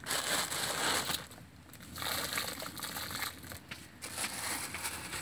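Large steel pot of chicken curry bubbling and being stirred, sloshing in three bursts of rushing, crackly noise, each one to two seconds long.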